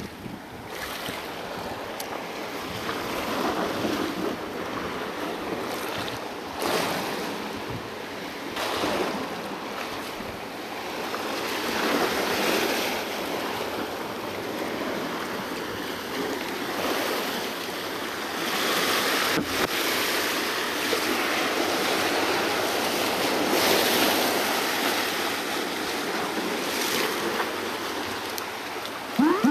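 Small sea swells washing and surging against shoreline rocks, swelling and easing every few seconds. Right at the end, a short loud rising whistle-like sound cuts in.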